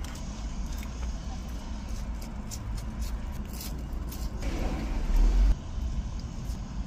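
Steady low rumble inside a car's cabin, with faint mouth clicks from eating fries. About four and a half seconds in, a louder rumble with hiss swells for about a second and cuts off suddenly.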